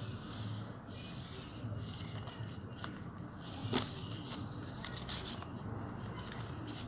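Sheet of paper being folded by hand, fingers rubbing and pressing along the creases, with one sharper crackle a little past halfway.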